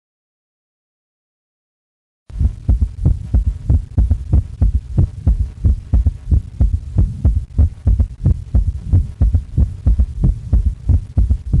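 Heart sounds with a third heart sound (S3 gallop): a steady run of low beats in a galloping rhythm, starting after about two seconds of silence.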